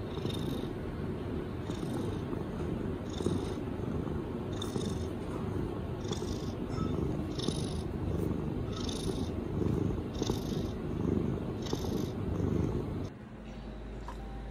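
Tabby cat purring close up: a steady low rumble with a soft breathy hiss about every second and a half, stopping near the end.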